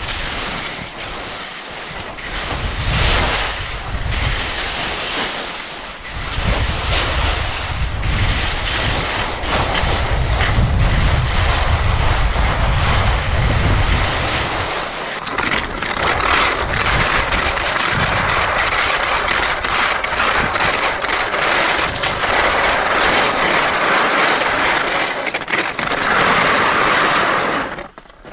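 Wind buffeting the microphone: heavy low gusts for the first half, then a steady loud hiss of rushing air. It drops off sharply near the end.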